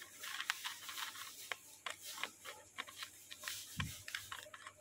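Handling noise: irregular light clicks and taps, a few a second, with one soft low thump a little before four seconds in.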